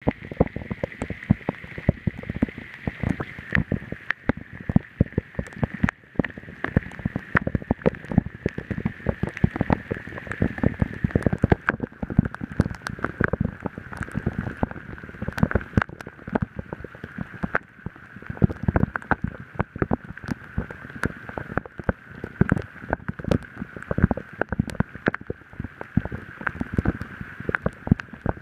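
Heavy rain pouring onto flooded grass: a steady hiss crowded with sharp, irregular taps of drops landing close by.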